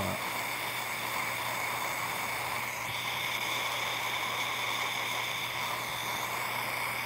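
Soldering torch flame hissing steadily as it is played over a ring to make the solder flow.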